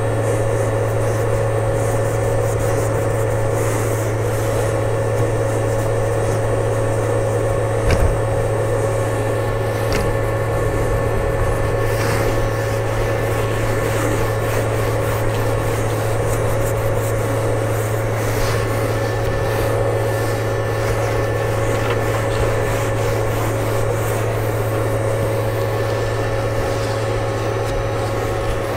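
Steady machine hum with a low drone and a higher steady tone, with a cloth rubbing and wiping over a bare 3D-printer bed.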